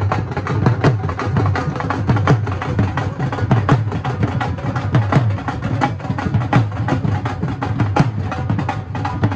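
A group of dhols played together with sticks. Deep bass thumps fall about every three-quarters of a second under fast, sharp stick strikes, in the keherwa taal rhythm.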